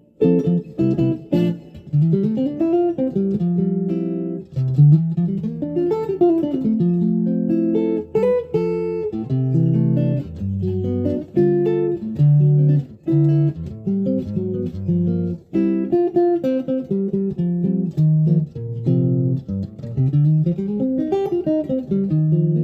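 Unaccompanied guitar playing fast single-note lines, with quick runs of notes that climb and fall, and a few sustained lower notes.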